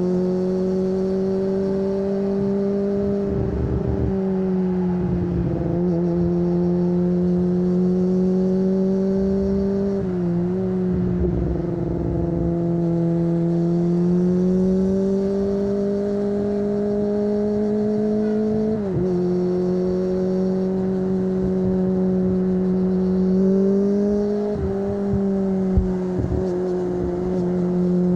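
Kawasaki ZX25R's 250 cc inline-four, breathing through an aftermarket Akrapovic exhaust, heard onboard while riding at a steady pace. The pitch rises and falls gently with the throttle, with brief dips about a third of the way in, about two-thirds in and again near the end.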